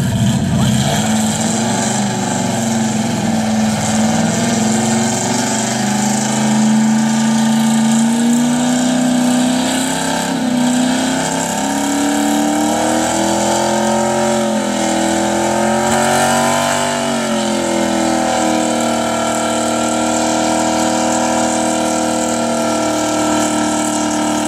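1969 Chevelle SS's 396 big-block V8 doing a burnout, revved hard against the spinning rear tyres. The revs climb over the first several seconds, waver, dip briefly about two-thirds of the way in, then are held steady and high.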